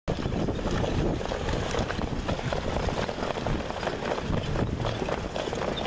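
Wind rumbling on the microphone, over a car engine and the hoofbeats of a harness horse and sulky on the dirt track.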